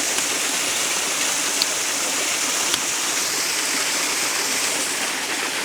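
Small waterfall cascading over sandstone ledges and splashing onto rocks: a steady rush of water. A few faint clicks stand out briefly against it.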